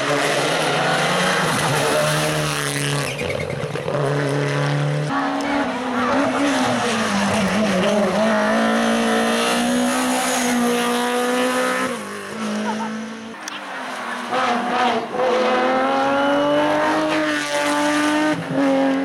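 Rally cars' engines revving hard one after another, the pitch climbing and then dropping sharply at each quick gear change.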